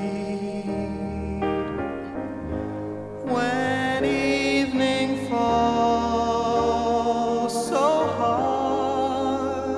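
Slow, gentle ballad with piano and singing: long held notes over sustained chords, with the melody sliding up into new notes a few seconds in and again near the end.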